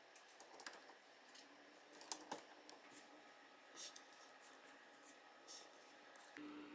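Faint, scattered clicks of small plastic LEGO pieces being picked up and handled on a tabletop, with a couple of sharper clicks about two seconds in.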